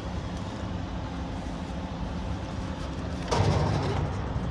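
Low, steady outdoor rumble with a louder noisy swell about three seconds in.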